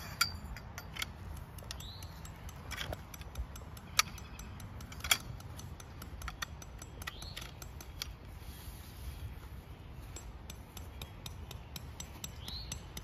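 Tent pole sections clicking and clacking against each other as they are joined and handled, a string of sharp, irregular knocks with a few louder ones about four and five seconds in.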